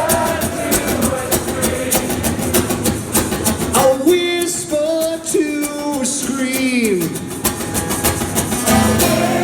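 Live rock band playing, with sung vocals over a steady drum beat and guitar.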